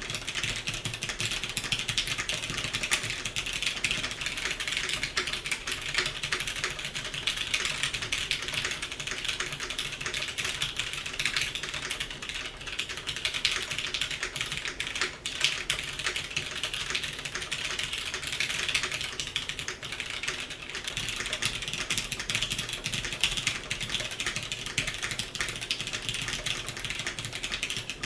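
Continuous quick typing on a custom mechanical keyboard with oiled vintage Cherry MX Clear tactile switches and GMK doubleshot ABS keycaps: a dense, steady clatter of keystrokes.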